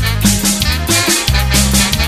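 Huayño band music: a saxophone lead with wavering vibrato over a bass line and a steady drum beat.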